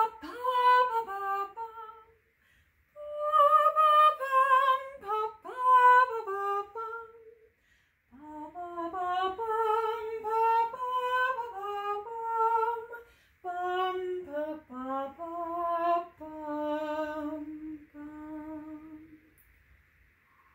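A woman singing a slow, wordless melody unaccompanied, in four phrases with short breaks between them.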